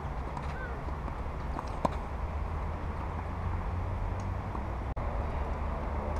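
A tennis ball struck by a racket on an outdoor clay court: one sharp pop about two seconds in, with a few fainter ticks of play, over a steady low rumble.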